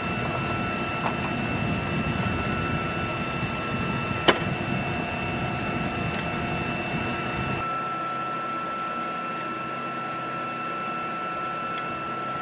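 Steady high whine and rumble of running flight-line aircraft machinery. There is one sharp clack about four seconds in, and the low rumble drops away a little past halfway.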